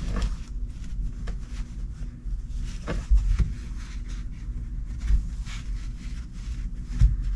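Soft rustling, shuffling and a few dull thumps of hands pressing and smoothing a sheet of jute padding into place, over a steady low hum.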